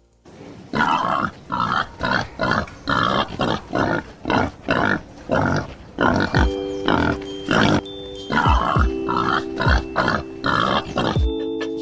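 Pigs grunting over and over, short rough grunts coming about twice a second. Background music comes in about six seconds in.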